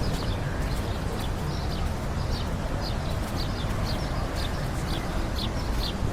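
Small birds chirping, short high notes repeating two or three times a second, over a steady low rumble.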